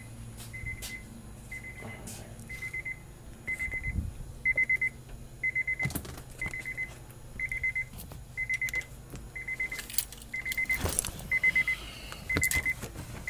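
Honda S2000 cabin warning chime beeping steadily, one short beep about once a second: the reminder that the key is in the ignition with the driver's door open. A few clicks and knocks from handling in the cabin come about halfway through and again a little later.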